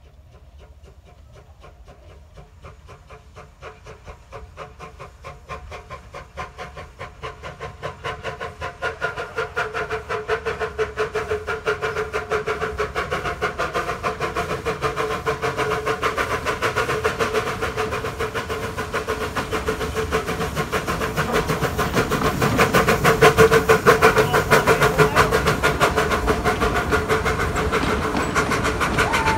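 A small 2 ft gauge steam locomotive working a passenger train as it approaches and passes, its rapid, even exhaust beats growing steadily louder and loudest about three-quarters of the way through. A steady tone runs under the beats.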